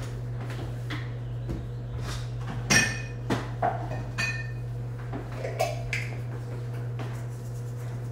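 Clinks and knocks of glass jars and dishes being moved about in a kitchen cupboard while a salt jar is fetched. The loudest clink comes a little under three seconds in, and another about a second later rings briefly. A steady low hum runs underneath.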